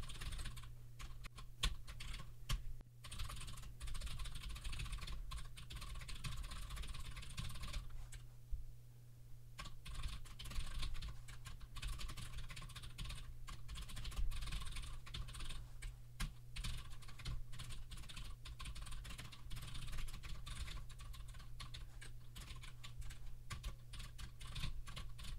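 Typing on a computer keyboard: a steady run of keystroke clicks, with a short pause about eight seconds in.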